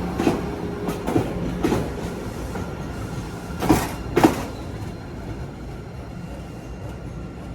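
MBTA Blue Line subway train rolling along the track, its wheels clacking over rail joints several times, loudest in a quick pair about four seconds in. The rumble fades as the train moves away.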